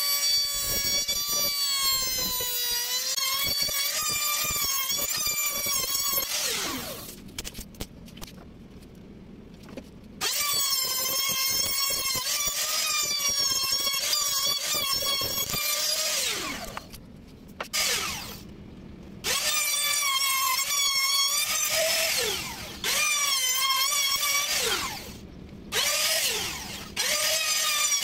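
Handheld trim router running at high speed with a high whine, its pitch wavering as it cuts into pine. Twice it is switched off and the whine falls away as the motor winds down, then it starts again a few seconds later. Near the end it is cut off and restarted three more times in quick succession.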